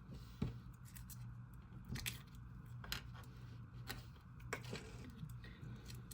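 Cookies and cream slime, a clay-based slime with clay pieces mixed into clear slime, being stretched and squeezed by hand, giving irregular sticky clicks and pops over a steady low hum.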